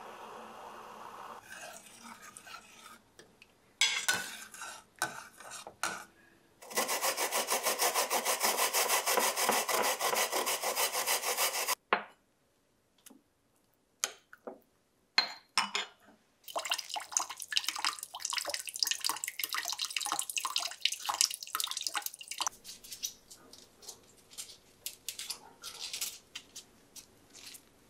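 A run of kitchen handling sounds: utensils clicking and knocking against pots, cups and dishes, with a wooden spoon scraping in a ceramic cup. About a quarter of the way in there is a spell of about five seconds of fast, even rubbing strokes, the loudest part.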